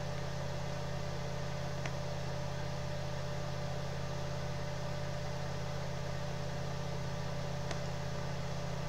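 Steady low electrical hum with a thin tone above it and an even hiss, the background noise of the recording, broken only by two faint clicks, about two seconds in and near the end.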